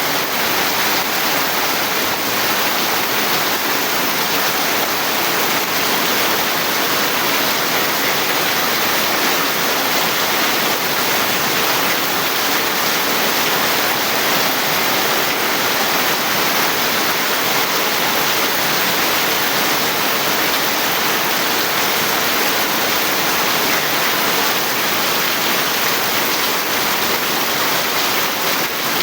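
Heavy rain falling steadily, a dense even hiss of downpour with no let-up.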